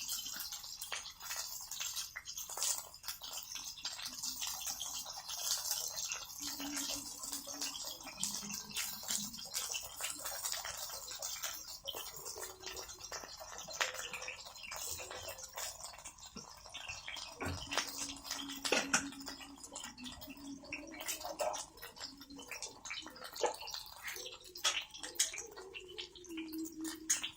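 Food frying in a pan over a wood campfire: a steady sizzle with irregular crackles and pops.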